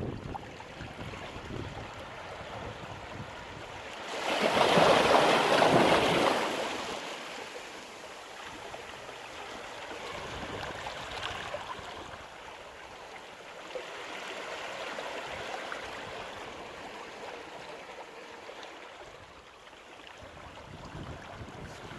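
Sea waves at high tide breaking and washing on the shore. One large wave breaks loudly about four seconds in, followed by softer surges washing in and out.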